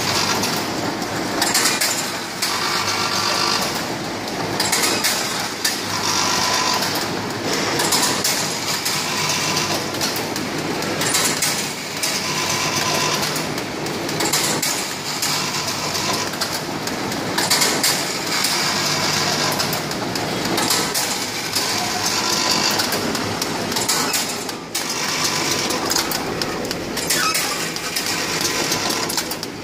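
Noodle and spaghetti packing machine running: continuous mechanical clatter and rattling that swells in a cycle about every two seconds as the machine works.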